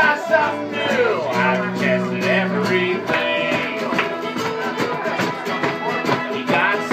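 Live country song on acoustic guitar with a singing voice. The voice stops about three seconds in, leaving the guitar playing alone.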